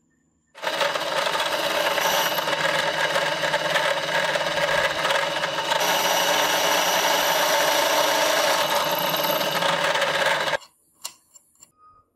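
Bench drill press running and drilling through a steel bar held in a drill press vise. The sound starts about half a second in, stays steady for about ten seconds and cuts off suddenly, followed by a few light clicks.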